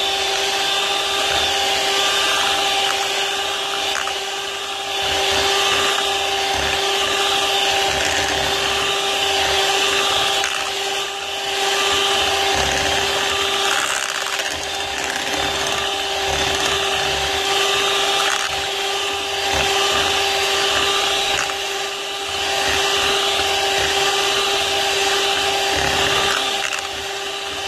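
Electric hand mixer running steadily with a constant motor whine, its beaters whipping all-purpose cream and condensed milk in a glass bowl for a no-churn ice cream base.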